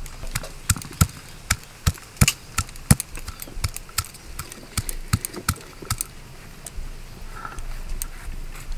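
Stone pestle (nora) crushing garlic cloves on a stone grinding slab (sil): a run of sharp knocks of stone on stone, about three a second, thinning out after about six seconds.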